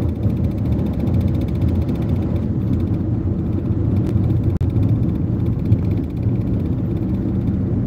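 Steady low engine and road rumble of a Toyota car driving, heard from inside the cabin.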